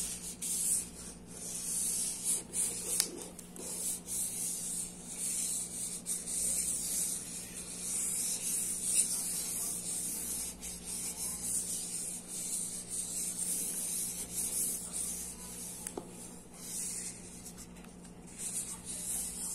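A bundle of felt-tip markers scribbling across paper: the tips rub over the sheet in long looping strokes, the rubbing swelling and fading with each stroke.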